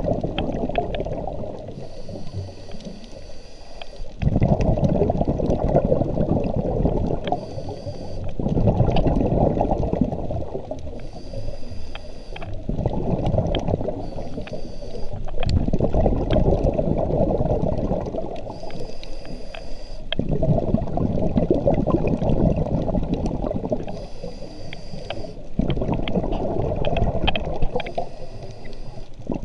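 Scuba diver breathing through a regulator underwater: a thin hiss on each inhale through the demand valve, then a long low rush of exhaled bubbles, repeating about every four to five seconds.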